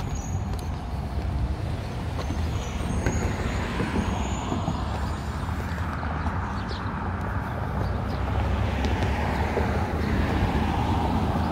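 Steady road traffic from cars passing on a multi-lane street: a continuous rumble that grows a little louder in the second half.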